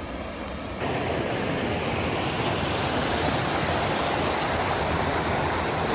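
Small mountain waterfall: a steady rush of falling water that grows louder about a second in.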